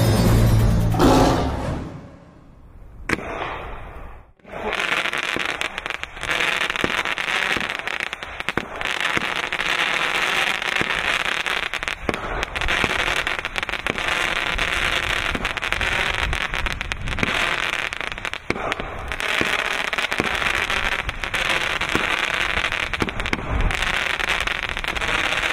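Compact 19-shot consumer fireworks cake burning with a dense, continuous crackling dotted with sharper pops. It starts about four seconds in, after a booming intro sound effect and a short lull, and runs steadily from then on.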